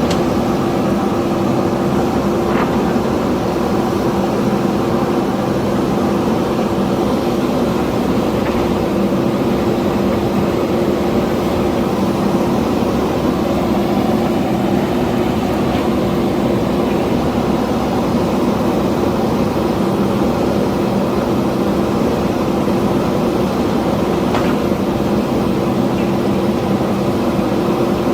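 JCB backhoe loader's diesel engine running at a steady speed, with a couple of faint knocks, one about two seconds in and one near the end.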